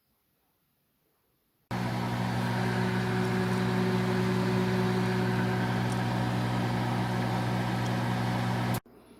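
A steady machine hum with several fixed tones. It starts suddenly about two seconds in and cuts off abruptly near the end.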